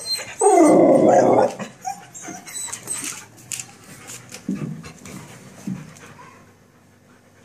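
Excited dogs vocalising behind a gate: one long, loud dog vocalisation starting about half a second in and lasting about a second, then a few short, fainter ones.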